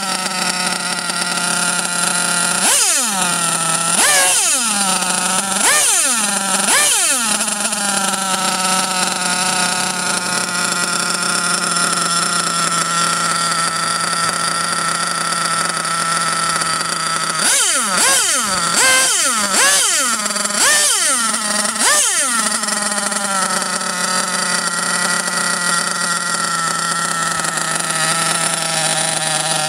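.28 nitro RC buggy engine, running out of the chassis, idling steadily while its throttle is blipped: four quick revs a few seconds in and a cluster of about five more around two-thirds through. It is being tuned after an engine cleaning.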